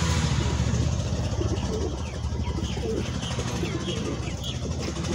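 Domestic pigeons cooing, a series of low coos starting about a second and a half in, with faint short high chirps among them, over a steady low hum.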